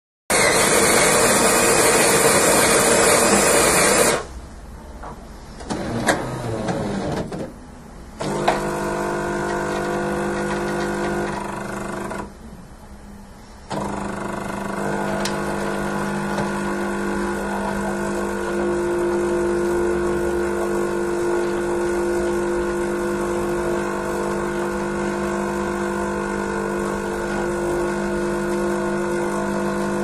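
Jura GIGA XJ9 bean-to-cup coffee machine making two espressos. It starts with a loud grinding noise for about four seconds, then a few quieter clicks and knocks. A steady pump hum follows, breaks off briefly about twelve seconds in, and then runs on evenly as the espresso pours.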